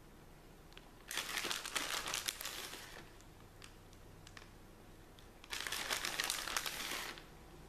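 Plastic bag of shredded cheese crinkling in two bursts of about two seconds each as handfuls of cheese are pulled out and sprinkled over the pan.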